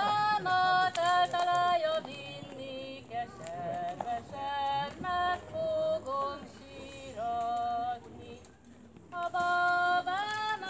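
Women's voices singing a Hungarian folk song in short phrases separated by brief pauses.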